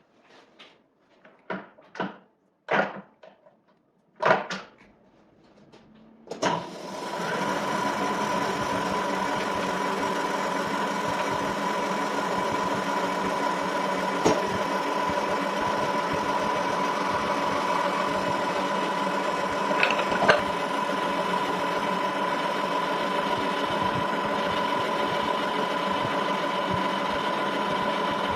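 A metal lathe starting after a few short clunks, then running steadily with a constant whine. Two brief sharp knocks come partway through the run.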